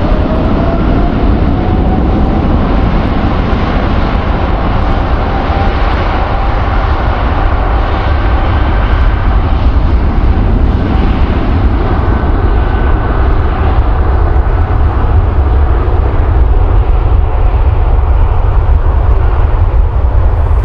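Jet airliner's engines, a loud steady rumble with a whine that rises in pitch over the first few seconds.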